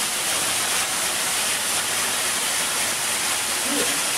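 A steady rushing hiss that does not change, with a brief faint voice near the end.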